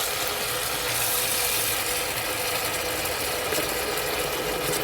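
Kitchen tap running hot water steadily into the sink.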